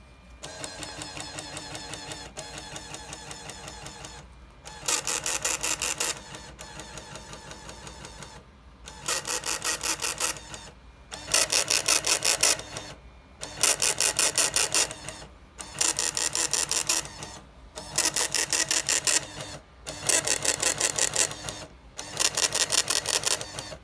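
Sage EAS ENDEC's built-in dot-matrix printer printing out the alert, a rapid mechanical chatter in runs of about a second and a half, line after line, with short pauses between. The first four seconds are quieter; after that each run is louder.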